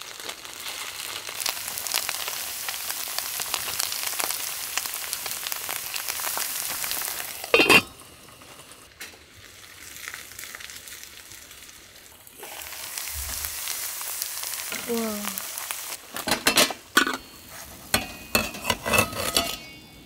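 Shredded-potato pancake sizzling in oil in a frying pan. A single loud clatter about eight seconds in, after which the sizzle drops low; it comes back about four seconds later, and a run of sharp knocks and clatters follows near the end.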